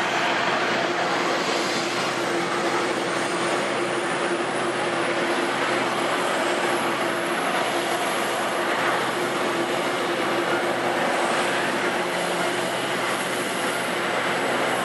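Jet airliner engines, a steady rush of noise with a faint high whine that rises about four seconds in.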